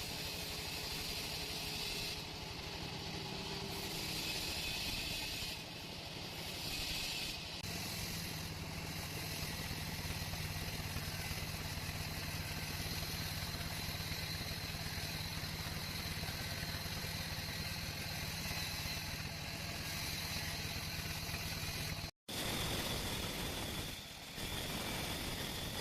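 Sawmill machinery running steadily, a motor's low hum under a hiss, with one abrupt break of an instant near the end.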